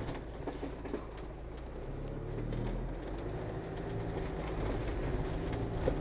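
Motorhome engine running low and steady as it climbs slowly up a muddy slope, with a few small knocks from the wheels on the rough ground.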